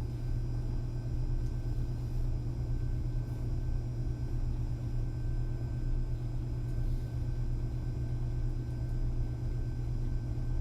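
Quiet room tone: a steady low hum and rumble with faint steady whines higher up, and a couple of faint soft movement sounds from someone in the room.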